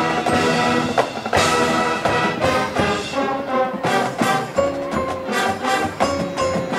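High school marching band playing: brass and woodwinds in a run of short, accented notes over percussion.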